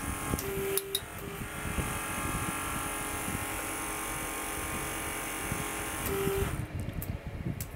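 Hydraulic torque wrench and its powered hydraulic pump running steadily to turn a high-strength friction-grip bolt through its 90-degree final rotation. The running stops about seven seconds in.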